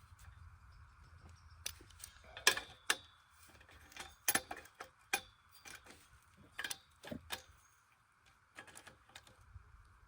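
Scattered light metallic clicks and clinks from hand-adjusting the clamps and bolts of an Alaskan chainsaw mill, with the sharpest knocks a few seconds in.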